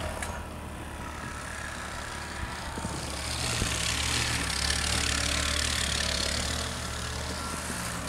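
A motor vehicle's engine idling with a steady low hum. A broad hiss swells up about three seconds in and fades again near the end.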